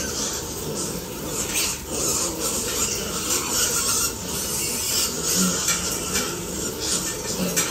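A pen full of piglets: a steady jumble of short grunts and the scuffing and shuffling of many trotters on wet concrete.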